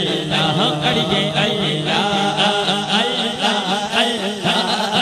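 Devotional Islamic chanting of a naat: a male reciter singing into a microphone over a steady low hum of backing voices, with rhythmic hand clapping about three to four times a second.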